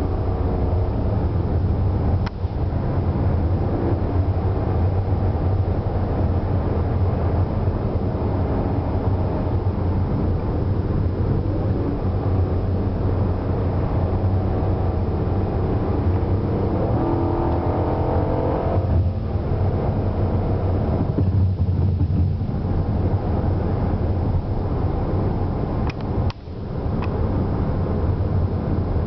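Car engine and road noise heard from inside the cabin while driving, with a steady low drone. About two-thirds of the way through, the engine note climbs in pitch for a couple of seconds, then drops away.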